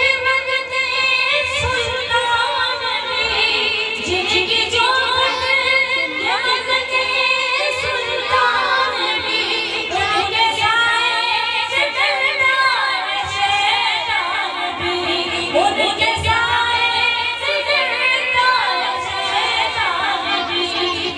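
A woman singing an Urdu naat solo into a microphone in long phrases, her pitch gliding and wavering in ornaments.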